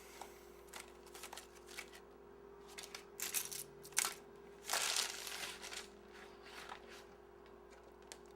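Scattered rustling and light clicks of things being handled, loudest in a few short spells around the middle, over a faint steady hum of room tone.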